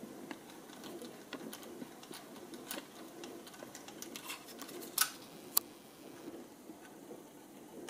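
Hand screwdriver turning a small screw in the plastic shock mount of an RC truck: soft scraping with many small ticks and clicks, and two sharper clicks about five seconds in.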